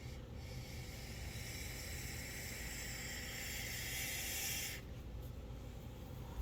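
Vape tank coil firing: a steady sizzling hiss of e-liquid vaporising as a long drag is pulled through the tank, lasting about four and a half seconds and cutting off suddenly.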